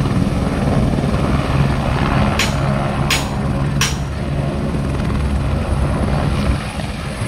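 Helicopter running on the pad, a steady low rotor and engine drone. Three short hissing bursts come around the middle.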